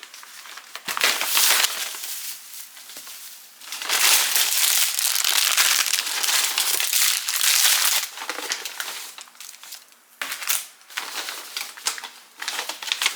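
Shopping bag crinkling and rustling in bursts as groceries are handled and unpacked, loudest in a long stretch from about four to eight seconds in.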